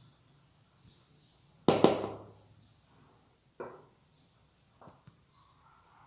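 Hand-mixing kitchen knocks: one sharp knock that rings briefly a little under two seconds in, then a few fainter clicks, as a spoon stirs flour and eggs in a glass bowl and a plastic bowl is put down on a stone counter.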